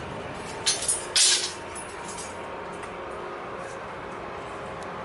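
Steady low drone of a Nuri-class 16,000 TEU container ship's machinery as it passes close by under way. Two short, loud hisses come about a second in.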